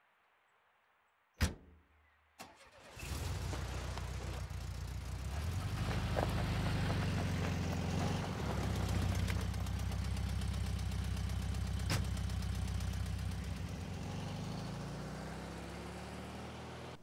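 A thump and then a click, followed by a Volkswagen Beetle's air-cooled flat-four engine starting and running as the car pulls away, slowly fading near the end before it cuts off.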